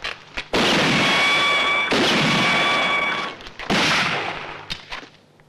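Three loud gunshots of a film soundtrack, about a second and a half apart, each with a long echoing tail. A steady high ringing tone sounds over the first two shots.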